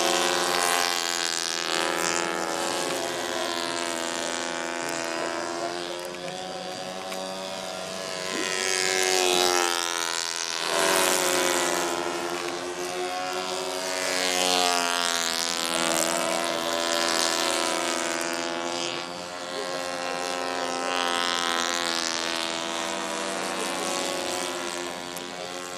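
Engines of two or more radio-controlled model combat planes buzzing overhead, their pitch sweeping up and down as they dive, climb and pass, with louder swells as a plane comes close.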